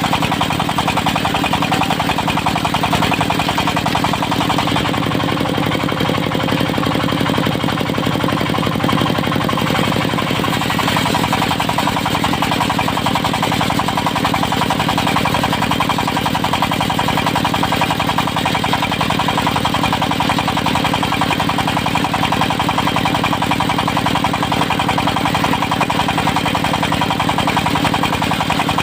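Engine of a portable circular sawmill running steadily with a rapid, even knocking beat.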